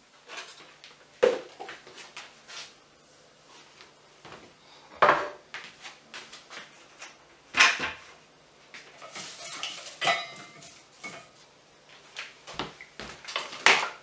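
Hard plastic trays and lid of a food dehydrator clattering and knocking as they are handled and set down: a string of separate sharp knocks, the loudest about one, five, seven and a half and thirteen and a half seconds in, with lighter taps between.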